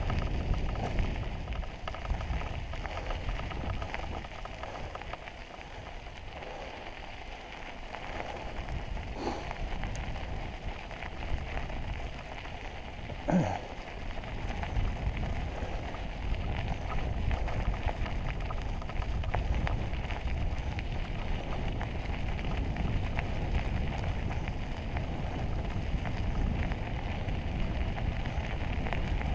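Mountain bike tyres rolling over a gravel trail: a steady crunching hiss, with two knocks from the bike over bumps, the louder about 13 seconds in.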